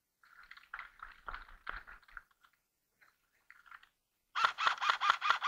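An airsoft rifle firing a fast string of shots, about six or seven a second, starting about four seconds in. Before it, a couple of seconds of irregular scuffing and shuffling of movement.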